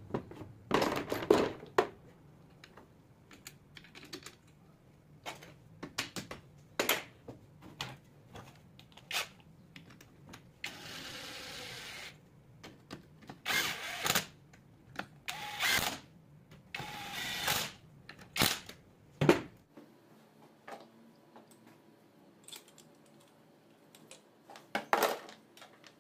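Clicks and metallic clinks of tools and small parts being worked on a 24-volt alternator's brush holder and rectifier. Between them come several short, steady bursts of a tool driving the screws, the longest about a second long near the middle.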